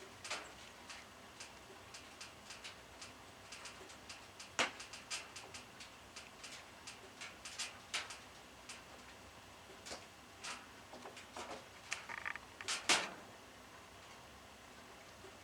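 Woodpecker pecking at a suet feeder: a run of irregular, sharp taps, with two louder knocks about four and a half seconds in and near the end.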